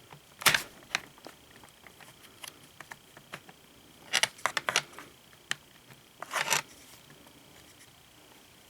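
Sharp metallic clicks and short clatters of pliers and the metal tilt rod being worked through the blind's headrail and tilt mechanism. There is a loud click about half a second in, a quick run of clicks around four seconds, and a brief rattle near six and a half seconds.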